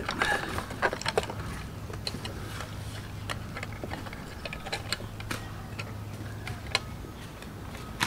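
Irregular small clicks and taps of a coiled cable and wires being pushed into the plastic head housing of a trolling motor by hand, over a faint steady low hum.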